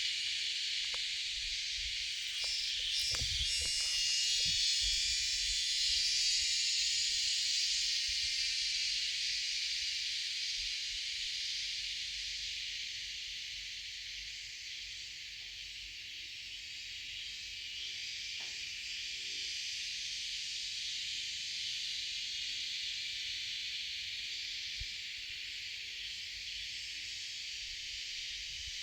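Dense insect chorus: a steady high-pitched buzzing hiss, a little louder in the first several seconds and easing off midway.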